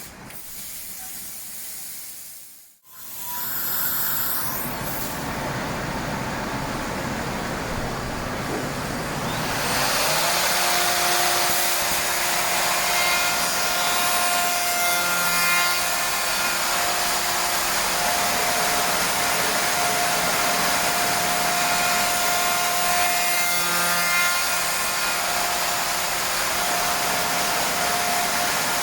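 SAOMAD Woodpecker Just 3500 CNC machining centre milling wood: a dense cutting and air hiss, joined about ten seconds in by a steady high spindle whine.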